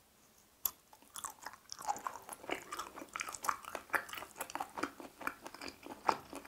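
Close-up eating sounds of grilled chicken hearts on a skewer, topped with teriyaki sauce and mayonnaise: a sharp bite about half a second in, then a quick irregular run of chewing clicks.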